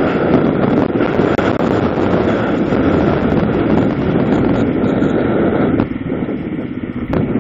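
Wind rushing over a helmet-mounted microphone, mixed with engine and road noise from a vehicle moving at road speed. The level drops for about a second near the end.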